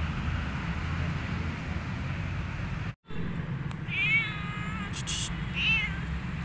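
Black cat meowing twice: one long meow, then a shorter one about a second and a half later, over a steady low background rumble.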